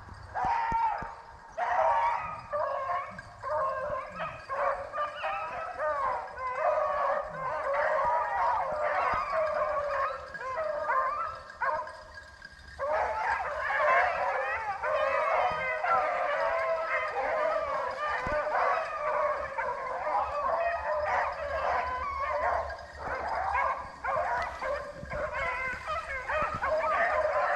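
A pack of rabbit hounds baying and yelping together in full cry, the sign that they are running a rabbit's track. The voices overlap, ease off briefly about halfway through, then come back in a dense chorus.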